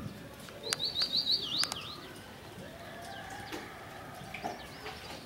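Bird calls: a quick run of about five high chirps about a second in, then fainter calls.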